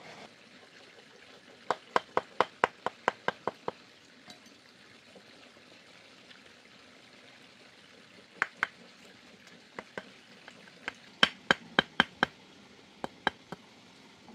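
Sharp knocks in quick runs: about nine in a row starting about two seconds in, a few scattered ones, then a faster run of about six near the end.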